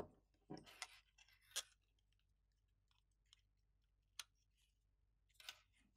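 Near silence with a few faint, scattered clicks of small plastic parts being handled as a wheel is pressed onto a servo.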